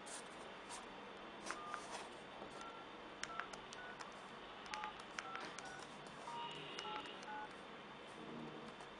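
Keypad buttons on a D18 cartoon flip mobile phone pressed one after another at an irregular pace, each click followed by a short key beep at varying pitch. The presses are faint.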